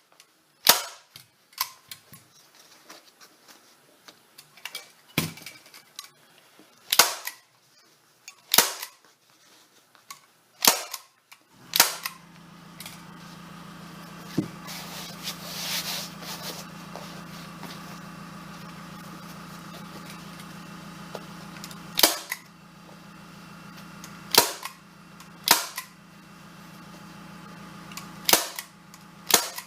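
Staple gun firing staples to fasten vinyl upholstery to a chair seat board: about a dozen sharp shots a second or more apart, with a long pause in the middle. A steady machine hum starts about twelve seconds in and keeps running under the later shots.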